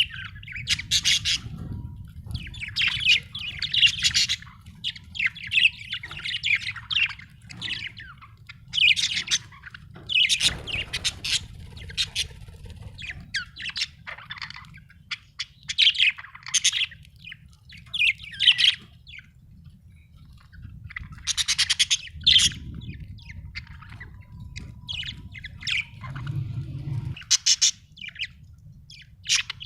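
Budgerigars chirping and chattering in quick, irregular bursts of short high calls, with brief pauses between runs.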